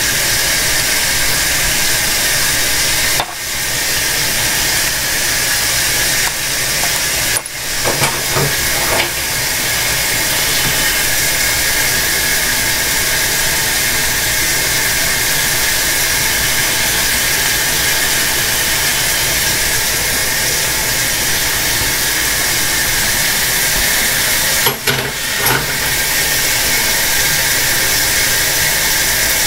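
A loud, steady hiss, broken by brief dropouts about three seconds in, again about seven seconds in, and near the end.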